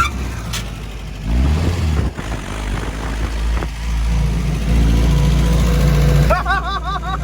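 A restored Jeep's engine running as it pulls away, revving up briefly about a second and a half in, then running steadily under light throttle.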